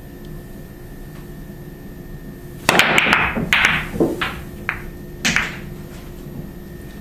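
Billiard balls clacking into one another in a rapid chain of sharp knocks starting about two and a half seconds in, as a cue-struck ball sets off the racked balls, followed by a handful of separate clacks over the next two seconds.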